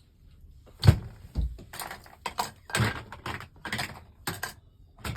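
Plastic Lego pieces clicking and knocking together as they are handled: about ten sharp, irregular clicks, the loudest a thud about a second in.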